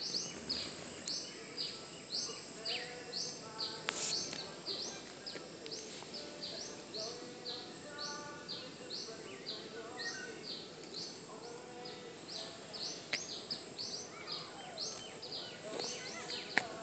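A chorus of short, high rising chirps repeating two or three times a second, with fainter lower calls woven in and a few sharp clicks.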